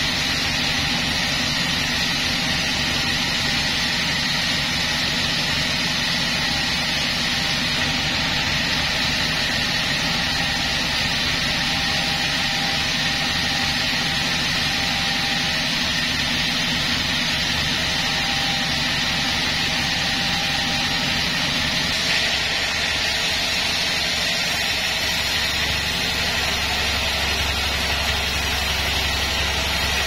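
Sawmill machinery running steadily at idle with no log being cut: an even mechanical drone carrying a constant high whine.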